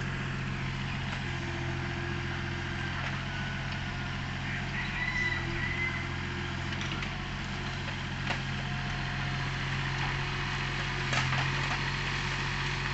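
Excavator's diesel engine running steadily at idle, with a few short knocks.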